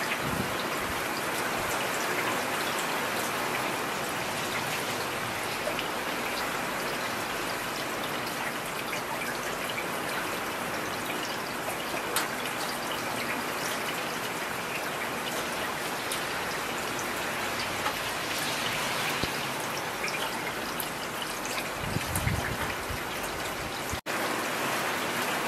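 Heavy rain falling steadily, a dense even patter and hiss. A brief low rumble comes through near the end, and the sound cuts out for an instant just after.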